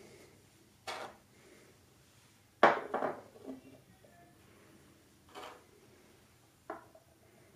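Small metal pipe fittings, black iron and brass, being handled and set down on a workbench: about four short knocks and clinks. The loudest comes about two and a half seconds in, with a brief rattle after it.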